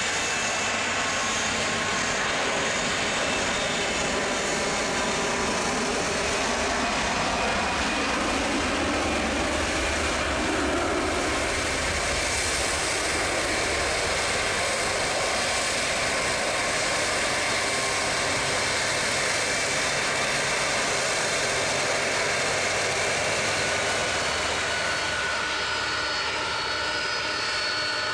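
Airbus A330-200's twin Rolls-Royce Trent 700 turbofans running at taxi power as the airliner rolls past, a steady jet whine and rush.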